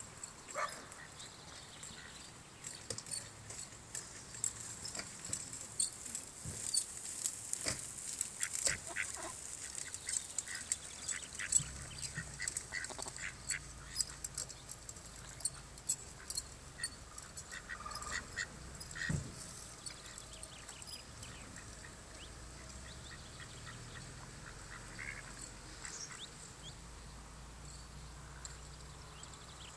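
Mallard ducks and their ducklings calling, short calls scattered through, among many small clicks and rustles that are busiest in the first dozen seconds.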